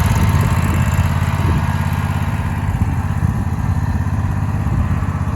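Zero-turn riding lawn mower's engine running steadily as the mower is driven.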